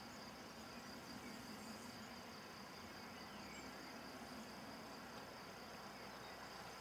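Faint, steady high trilling of crickets over a low hiss.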